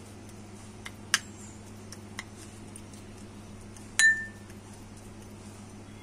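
Steel spoon clinking against a small glass bowl while mashing herb leaves. There are a few light taps and two sharp clinks, about one second and about four seconds in, the second ringing briefly. A steady low hum runs underneath.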